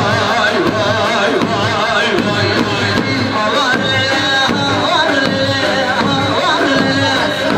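Turkish folk dance music for a line dance (halay), with a steady drum beat under a wavering, ornamented melody.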